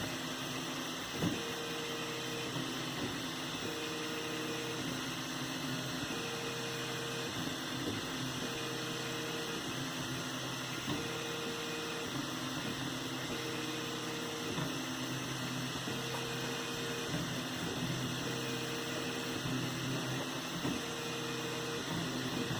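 3D printer's stepper motors humming as the print head moves, their tones switching pitch about once a second, with an occasional faint click.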